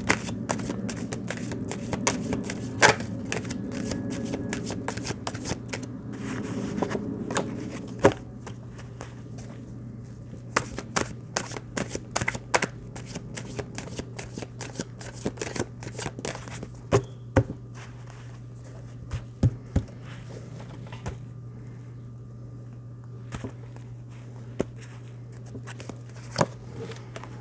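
Tarot cards being shuffled and handled, with many short, irregular flicks and taps, busier in the first several seconds, over a steady low hum.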